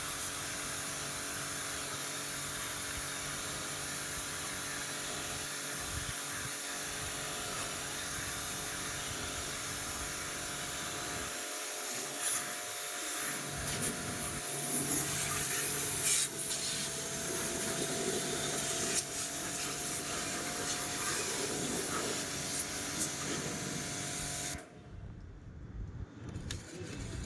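Motor-driven water washer running steadily with a fixed hum while jetting water onto a window air conditioner. About halfway the spray grows louder and more uneven, and the sound cuts out briefly near the end.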